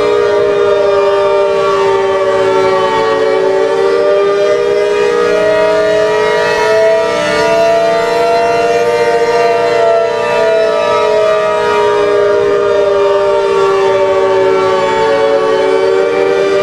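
ACA Hurricane 130 outdoor warning siren sounding the attack signal: a loud wail that slowly falls, rises and falls again in pitch.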